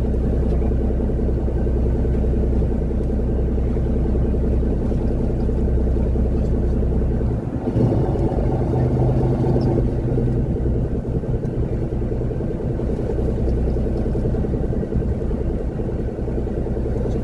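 Boat engine running steadily with a low rumble; about halfway through its note shifts as the throttle changes, then settles.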